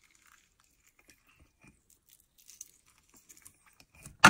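Half a lime being squeezed by hand over a small glass bowl: faint wet squelching and small clicks. Near the end comes a single sharp knock.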